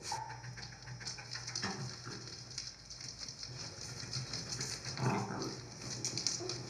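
A dog giving two short calls, about two seconds and five seconds in, over a constant crackling noise.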